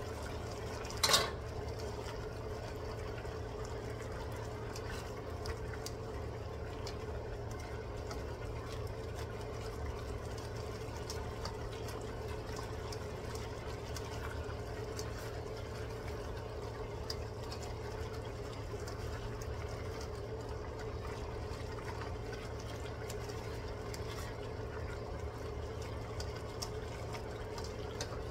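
Squid and vegetables simmering in a steaming wok, a steady bubbling with faint scattered crackles over a constant low hum. About a second in, a single metal clank as the aluminium lid comes off the wok.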